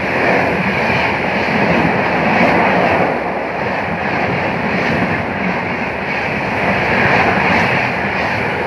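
Duranto Express coaches passing close at about 130 km/h: a steady, loud rush of wheel-on-rail and air noise from the speeding train.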